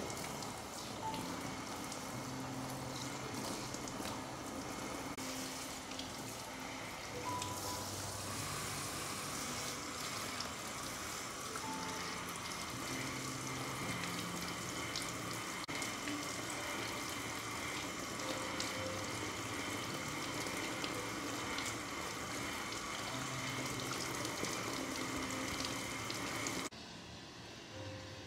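Water running steadily from a tap at a hair-wash basin, under soft background music. The water sound cuts off suddenly near the end.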